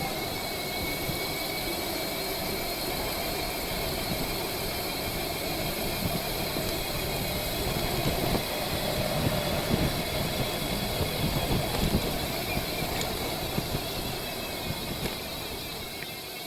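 Road traffic noise mixed with wind rushing over the microphone of a moving bicycle, a steady rumble that grows louder for a few seconds past the middle.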